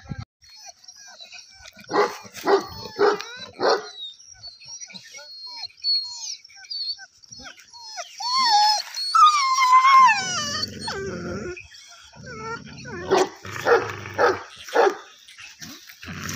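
Dog barking in two quick runs of about four barks, a couple of seconds in and again near the end, with high whining yelps that waver up and down in between.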